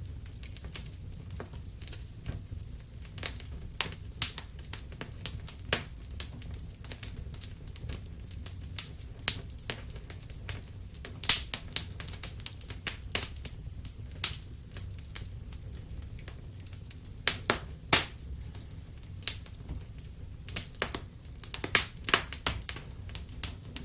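Wood fire crackling: irregular sharp pops and snaps, a few a second and some much louder, over a steady low rumble of burning.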